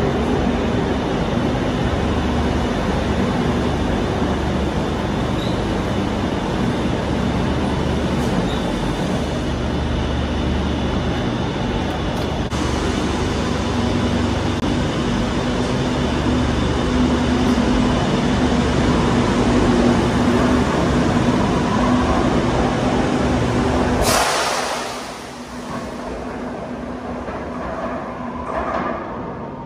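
Madrid Metro 2000-series train in an underground station: a steady rumble of motors and wheels with a steady hum, growing louder past the middle. About two-thirds in, the sound drops suddenly to a quieter rumble as another metro train approaches out of the tunnel.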